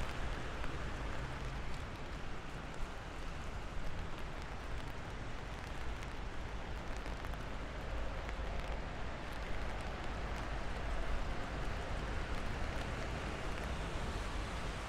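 Steady rain falling, an even hiss of drops, with a low steady rumble underneath.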